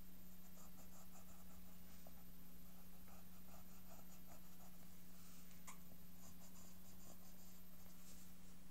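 Pencil scratching on paper in quick, short sketching strokes, several a second, with one sharper tick just past the middle, over a steady low hum.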